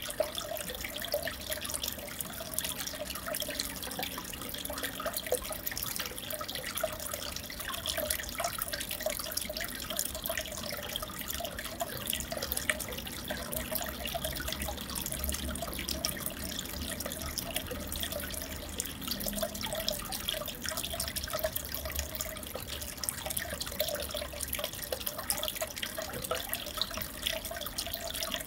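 Steady trickling and bubbling water, an even running splash full of fine droplet crackle, as from an aquarium's filter outflow or air bubbles breaking at the surface.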